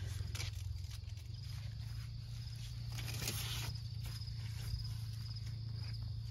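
Crickets chirping steadily in a fast even pulse over a steady low rumble, with a brief rustle about three seconds in.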